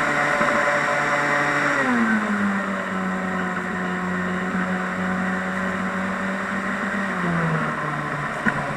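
FPV quadcopter's motors and propellers whining steadily. The pitch drops about two seconds in and drops again near the end.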